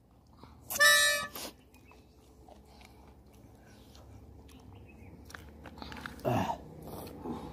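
A plastic toy horn blown once about a second in, a short reedy note. A brief falling voice-like call follows about six seconds in.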